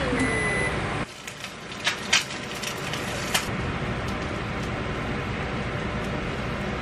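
A short high electronic beep from a kitchen appliance, then a few light clinks and knocks of kitchenware about two seconds in, over a steady rushing hiss.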